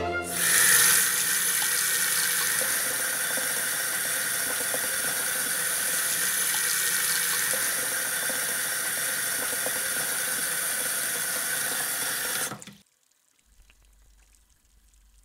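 Shower spray running steadily, a dense hiss of water, which stops abruptly about three-quarters of the way in.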